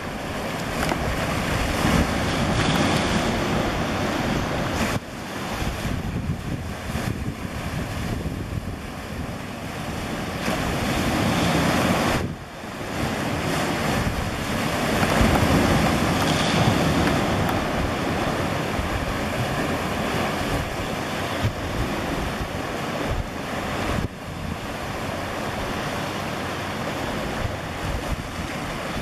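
Sea surf washing and wind buffeting the microphone: a steady rushing noise, heaviest in the low rumble, that swells and eases in loudness.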